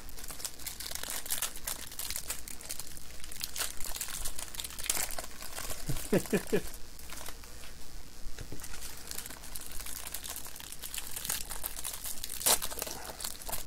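Trading-card pack wrapper crinkling and tearing as it is handled and opened by hand, a run of irregular crackles that is loudest near the end.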